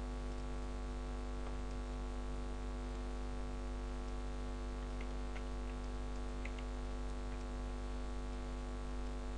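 Steady electrical mains hum, with a few faint computer-mouse clicks about halfway through.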